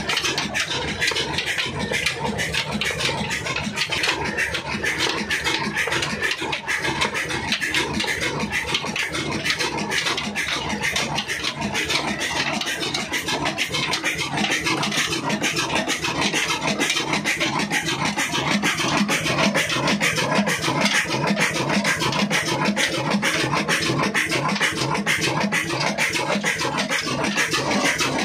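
Desi Ruston-type diesel engine running steadily under belt load, with a fast, regular mechanical clatter.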